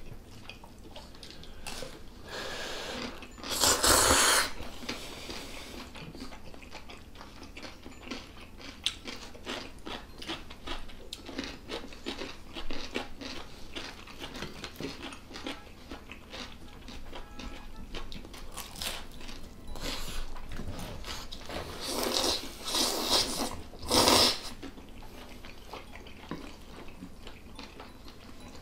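Close-up eating sounds of chapagetti black-bean noodles and side dishes: chewing, crunching and small clicks, with a few louder slurps of noodles about four seconds in and twice more a little past twenty seconds.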